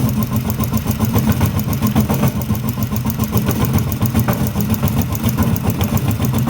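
Wills compressor running steadily, with a fast, even pulse.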